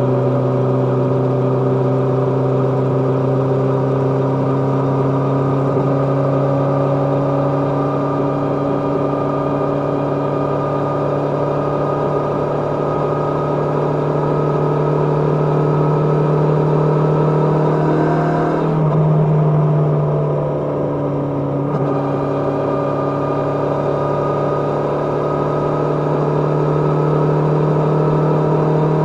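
Kawasaki GPZ550's air-cooled inline-four engine running under way at a steady pitch. About 19 seconds in the throttle eases off and the sound drops and softens for a few seconds, then the engine picks up again and runs steadily.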